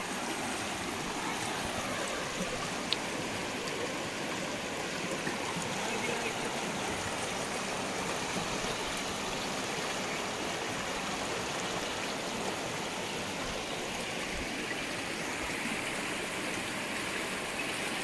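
Shallow, fast rocky stream running over stones and boulders: a steady rush of water.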